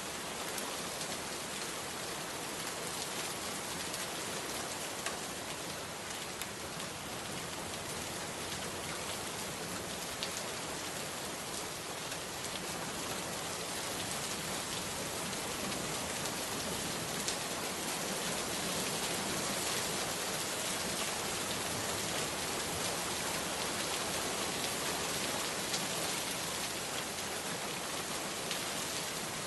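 Steady rain falling, an even hiss with scattered drop ticks striking a surface.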